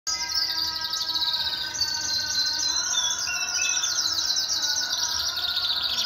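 Domestic canaries singing: rapid, rolling trills and chirps at several pitches, overlapping one another without a pause.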